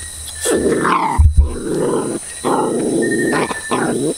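A dog growling and grunting at close range in two long rough spells while being handled, with a short low thump about a second in.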